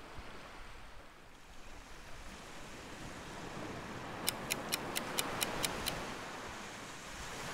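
Surf breaking on the beach, swelling to a peak about five seconds in. Over it, about four seconds in, come eight quick, evenly spaced ticks, about four a second, from a clock-tick countdown sound effect.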